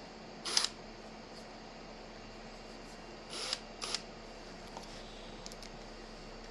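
Three short, faint clicks and rattles of small hardware being handled: a thumb screw being worked into a drill chuck. The first comes about half a second in, and the other two come close together around three and a half to four seconds in.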